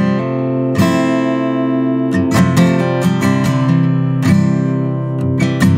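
Acoustic guitar strumming chords, with a handful of strokes that each ring on. It is played back from a recording made with a Soyuz 013 small-diaphragm condenser microphone.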